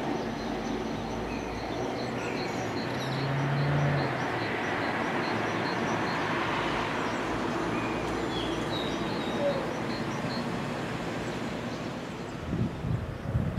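Lone electric locomotive running light along the track, giving a steady rail running noise. A brief low hum swells from about three to four seconds in, the loudest moment.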